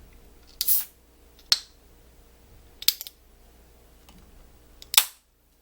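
A 355 ml aluminium beer can being opened: a few sharp clicks and snaps from the can and its pull tab, the loudest near the end a crack with a short hiss as the seal breaks and the beer spurts out.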